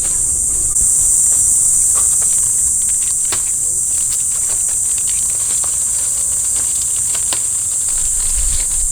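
Loud, steady high-pitched shrill of an insect chorus, slightly louder from about a second in, with scattered faint clicks and snaps.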